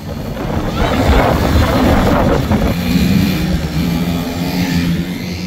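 Small quad-bike (ATV) engines running on a dirt track, with a rushing noise about a second in, then a steady engine hum as a quad passes close by.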